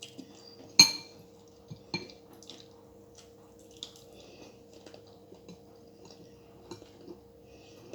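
Cutlery clinking against a dish: one sharp ringing clink about a second in, then a few light scattered taps and clicks over a faint steady hum.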